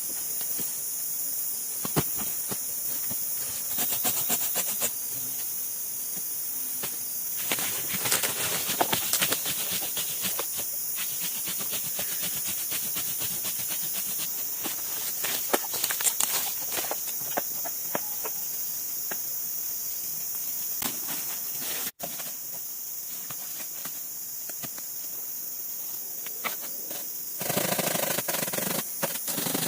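Steady high-pitched insect chorus of a tropical rainforest, with scattered clicks, knocks and rustling from someone moving about and handling things; a louder rustle comes near the end.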